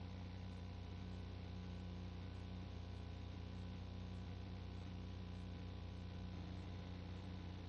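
Steady low hum with an even hiss behind it, unchanging throughout, with no distinct events.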